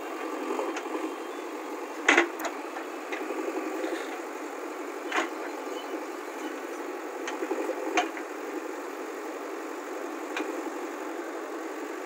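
JCB 3DX backhoe loader's diesel engine running steadily while the backhoe digs, with four sharp knocks spaced a few seconds apart.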